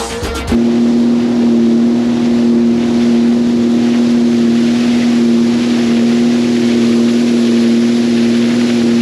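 Sea-Doo GTX 170 personal watercraft's three-cylinder Rotax engine running at a steady throttle while under way, a steady drone over the hiss of water and spray. It cuts in abruptly about half a second in, as background music stops.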